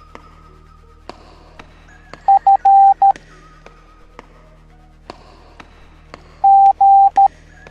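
Morse code beeps in a steady single tone, keyed dot-dot-dash-dot (the letter F), then a few seconds later dash-dash-dot (the letter G), over quiet background music with light ticking percussion.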